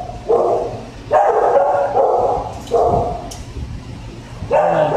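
Shelter dogs barking in a kennel room, about five separate barks spread over a few seconds, each trailing off in echo.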